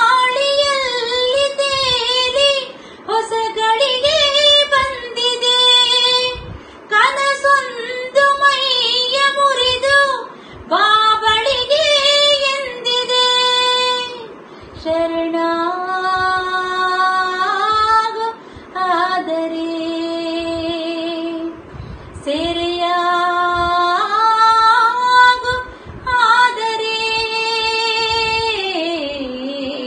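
A woman singing solo without instrumental accompaniment, in phrases of a few seconds with short breaths between. The first half has quickly wavering, ornamented pitch; from about halfway the notes are held longer and step up and down.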